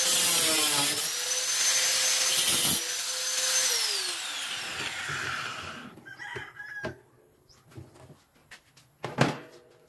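Electric angle grinder cutting through the steel wire guard of an electric fan. Its whine dips briefly in pitch as the disc bites, and about four seconds in it is switched off and winds down to a stop. A few light metal knocks and rattles follow as the grinder is set down and the cut grille is handled.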